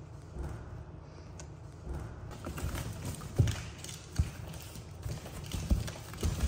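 A monkey inside a cardboard box tearing the edge of a hole in the cardboard and bumping against the box: crackling, rustling cardboard with several dull thumps, the loudest about three and a half seconds in.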